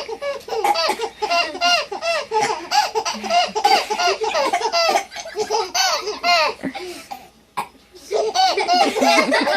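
Baby giggling and laughing in quick, repeated bursts, breaking off for about a second near the end before laughing again.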